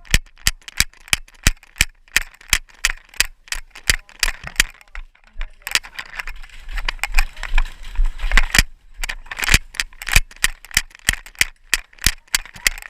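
A quick, irregular series of sharp clicks and knocks, about two to three a second, with scraping and rattling between them.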